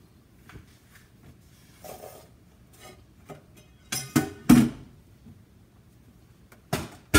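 Knocks and clatters of a white plastic kitchen appliance with a hinged lid being handled and turned over on a counter: scattered light knocks, a louder cluster of clatters about four seconds in, and two more sharp knocks near the end.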